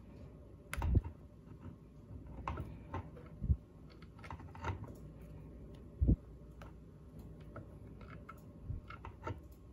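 Hands handling speaker wire at the subwoofer's circuit board: scattered light clicks and taps, with a few dull knocks about one, three and a half, and six seconds in.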